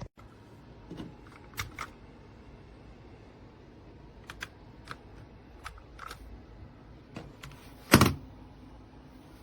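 Mechanical keyboard keys pressed one at a time, giving about a dozen scattered single clicks, with one louder knock about eight seconds in.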